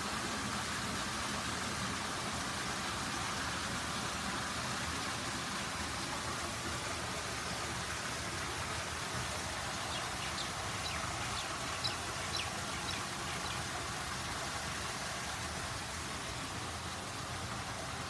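Pool waterfall running: a steady rush of falling and splashing water. A few short high chirps sound partway through.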